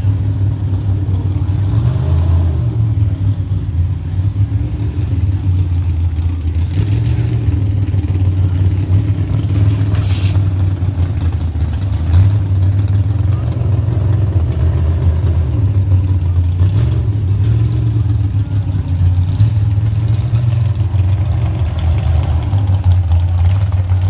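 Car engine running steadily: a low note that swells and eases every second or two, with a brief click about ten seconds in.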